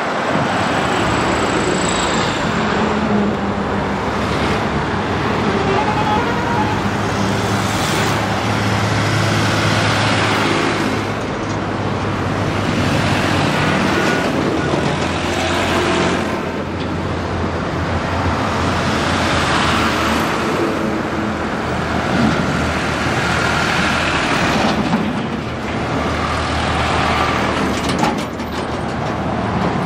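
Several diesel tractor engines running at idle in a line, a steady low drone, with a hissing rush that rises and falls every few seconds.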